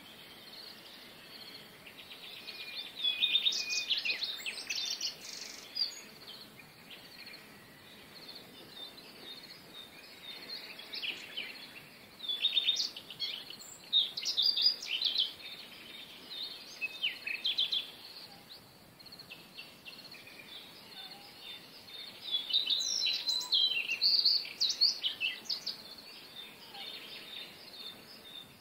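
Small songbirds chirping and singing in three spells of quick trills and short gliding notes, over a steady faint background hiss.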